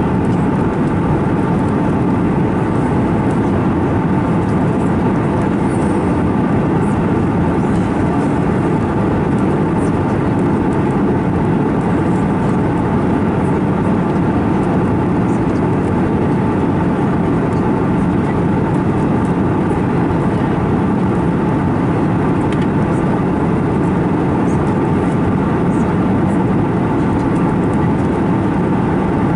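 Steady cabin drone inside an Airbus A321neo airliner in flight: a loud, even rush of airflow and engine noise that does not change.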